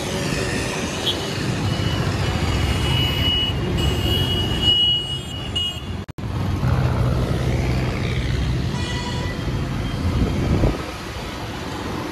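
City road traffic: vehicle engines running and road noise, with a long high horn tone in the first half and a shorter horn blast about three-quarters through. The sound cuts out for an instant about six seconds in.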